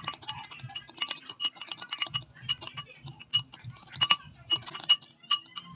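A metal utensil clinking irregularly against a ringing bowl, several sharp strikes a second, as when beating eggs with a fork or spoon.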